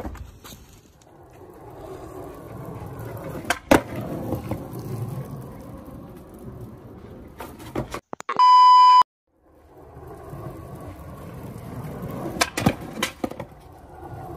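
Skateboard wheels rumbling over rough concrete, with sharp clacks of the board a few seconds in and again near the end. About eight seconds in, the rolling gives way to a loud, steady TV test-tone beep lasting under a second.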